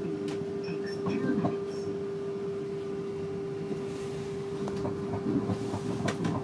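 Automated electric pod car running along its guideway, heard from inside the cabin: a steady whine at one pitch over a low rumble, with a few light clicks.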